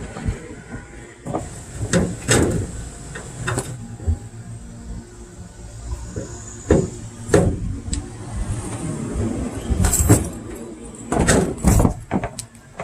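Irregular knocks, clicks and clatter from things being handled and moved about, a dozen or so sharp strokes of varying loudness spread throughout, over a low rumble.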